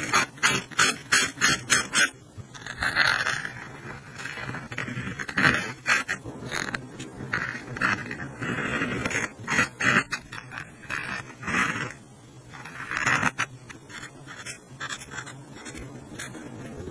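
Paint marker nib scrubbing and tapping on textured watercolour paper in quick back-and-forth colouring strokes, with a fast run of taps in the first two seconds.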